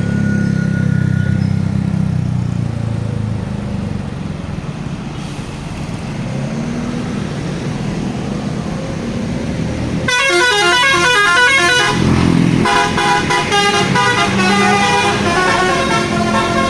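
A bus engine rumbles for about ten seconds, then a tour bus's basuri telolet melody air horn starts up, playing a fast warbling tune of rapidly changing notes, followed by a run of held musical notes.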